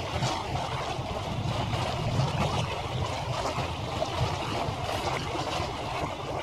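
Outdoor harbour ambience played back at five times normal speed: a steady, dense rumbling noise with a fluttering hiss over it and no single clear source.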